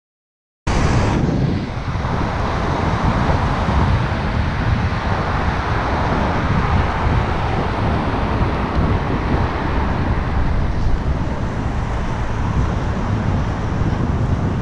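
Wind rumbling over a moving cyclist's camera microphone, mixed with road traffic, starting abruptly out of silence under a second in and then running as a steady noise.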